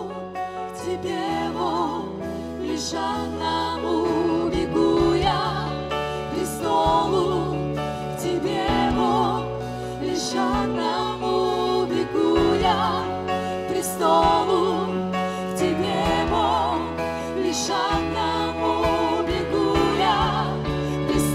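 A live worship band playing: several vocalists singing a Russian-language praise song with wavering vibrato, backed by keyboards, electric guitars and bass, with occasional cymbal-like strikes.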